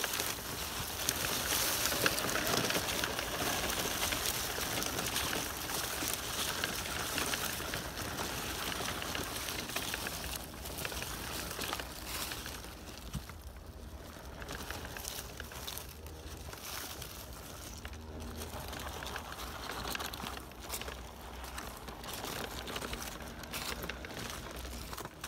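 Dry fallen leaves crunching and rustling under the tyres of an RC crawler truck and the footsteps of someone walking after it, many small crackles over a steady rustle.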